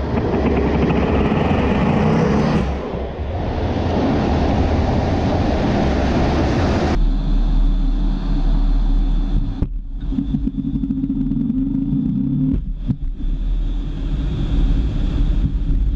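Fighter jet noise from inside the cockpit: a loud, dense rush of engine and air noise, which changes abruptly about seven seconds in to a lower, steadier rumble.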